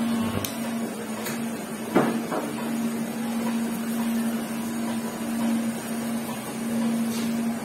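Electric hair clipper running with a steady low buzz as it works along the back of the neck, with a sharp click about two seconds in.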